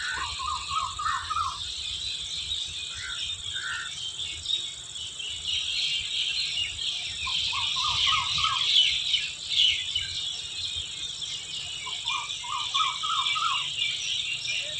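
Evening chorus of chirping birds over a steady background of insects. Three times a bird gives a quick run of five or six short repeated notes: at the start, about halfway, and near the end.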